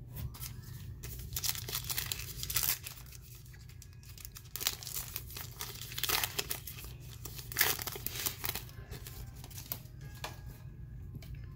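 A foil trading-card pack wrapper being torn open and crinkled by hand: irregular crackles and rips.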